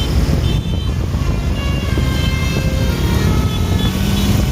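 A large bus running close by, its heavy diesel engine and road noise making a dense, steady rumble. Faint steady high tones sit over it, and a low steady tone comes in near the end.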